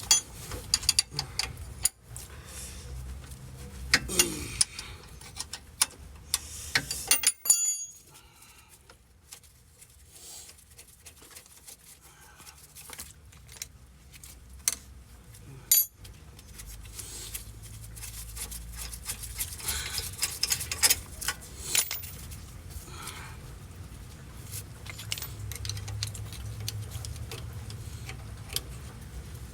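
Hand tools clinking, tapping and knocking against metal brake parts: an irregular run of sharp metallic clicks and knocks over a low steady rumble.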